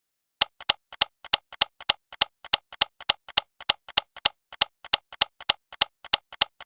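Steady, evenly spaced ticking, about three sharp ticks a second, each loud tick followed closely by a fainter one.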